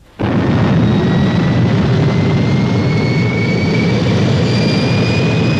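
Rocket-engine sound effect for Fireball XL5's main boosters firing. A loud, steady roar starts suddenly, and a thin whistle over it rises slowly in pitch.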